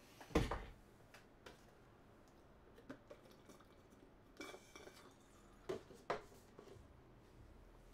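A few faint, scattered clicks and light knocks of small hard objects being handled, the loudest about half a second in and two sharper ones near the end, with a brief soft rustle in between.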